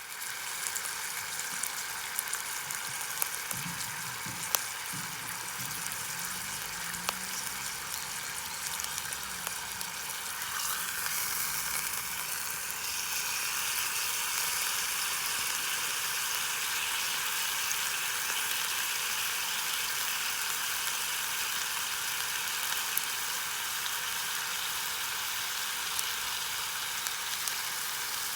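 Food frying in a pan over a campfire: a steady sizzling hiss with scattered small pops, growing a little louder about halfway through.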